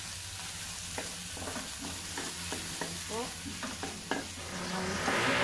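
Shrimp, onion and garlic sizzling in a wok while a wooden spatula stirs them. The spatula scrapes and knocks against the pan in short strokes, about three a second, from about a second in until near the end.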